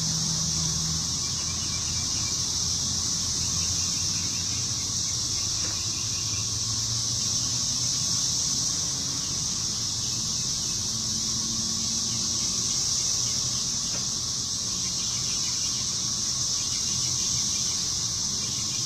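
Steady, high-pitched drone of a chorus of insects, unbroken and even in level.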